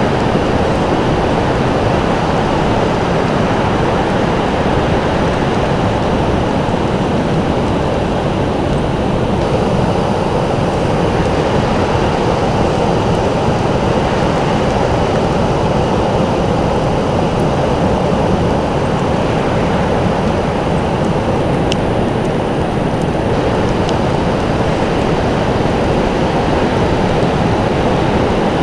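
Steady, unbroken roar of rushing water, even in loudness, deep and full with no surges or lulls.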